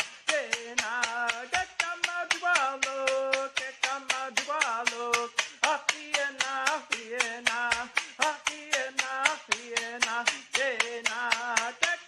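A man singing a Mi'kmaq Gojwa song in long held notes, keeping a fast steady beat of about five strikes a second with a ji'kmaqn, a split wooden stick rattle slapped against his palm.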